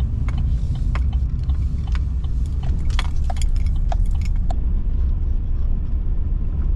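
Vehicle cabin noise while driving: a steady low engine and road rumble, with light clicks and rattles over the first few seconds.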